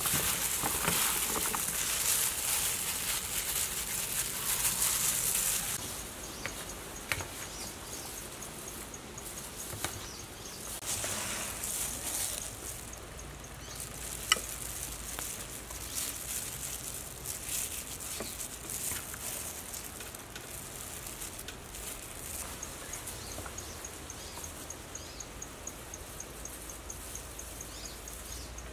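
Dressed salad leaves rustling and squelching as they are tossed by a gloved hand and spoon in a plastic bowl, loud for the first several seconds, then quieter scooping with a single clink about halfway through as the spoon meets a ceramic plate. Faint, evenly pulsing insect chirps run underneath after the mixing stops.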